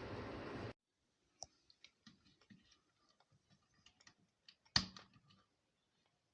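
A steady rushing noise stops abruptly in the first second. Faint, scattered small clicks follow, with one sharper click about halfway through.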